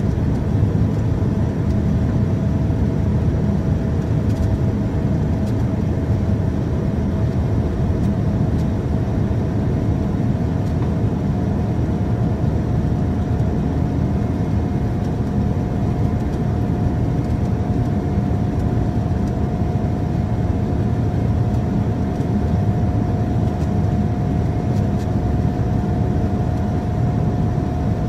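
Steady jet engine and airflow roar of a Boeing 787-9 in its climb after takeoff, heard inside the cabin, with a faint steady hum running through it.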